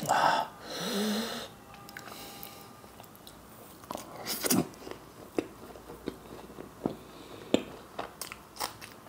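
Close-miked wet chewing and lip smacks of a person eating curry-soaked mutton and luchi: a string of sharp wet clicks, irregular and unevenly spaced. A short loud breathy sound comes near the start.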